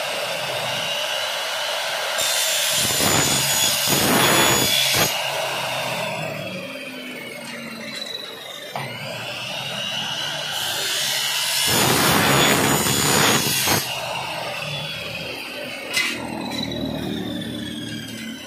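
Electric miter saw cutting aluminum window-frame profile twice: a loud rasping cut a couple of seconds in and another about two-thirds of the way through. Between cuts the motor's whine runs on and winds down in pitch.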